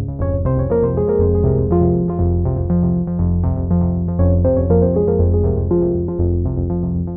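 Background music: synthesizer and keyboard notes over a repeating bass line, with a steady beat.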